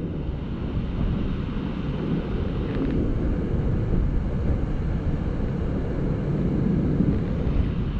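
Steady low rushing outdoor noise with no distinct events.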